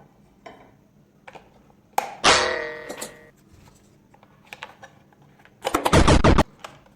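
Strummed guitar chord ringing out and fading, about two seconds in, with scattered light clicks, then a short loud burst of noise near the end.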